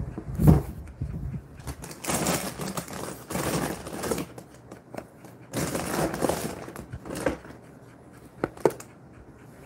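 Jindo-mix dog panting with its mouth open after a walk, in irregular breathy bursts, with two short sharp clicks near the end.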